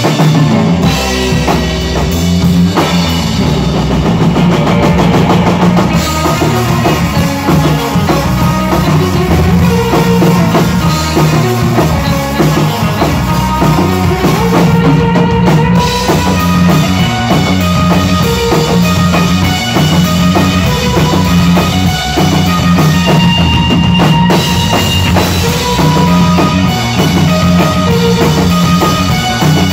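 Rock band playing loud and steady: drum kit with bass drum and snare, electric guitar and bass guitar.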